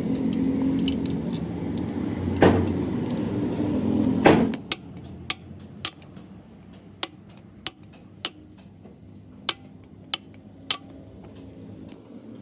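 A steady machine hum with a few knocks, cutting off suddenly about four seconds in, followed by about nine sharp, ringing hammer taps on metal, spaced irregularly.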